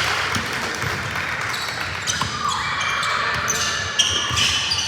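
Basketball being dribbled on a gym floor, with repeated high squeaks of sneakers on the court, over the chatter of spectators.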